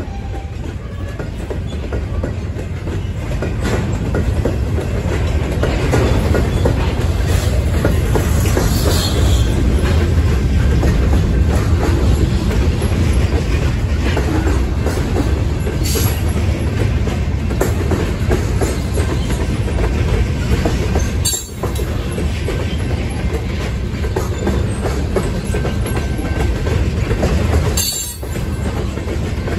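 Freight train cars (covered hoppers and tank cars) rolling past close by: a steady rumble of steel wheels on the rails that builds over the first few seconds, dipping briefly twice near the end.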